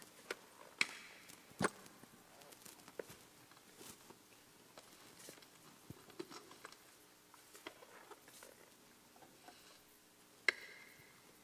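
Quiet handling sounds as a priest takes up a gold monstrance from the altar: scattered soft clicks and knocks with faint rustling of vestments. Near the end comes a sharper clink that rings briefly, as the monstrance is lifted from its stand.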